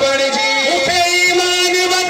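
Men singing a Sindhi devotional song through microphones, with long held notes that slide between pitches.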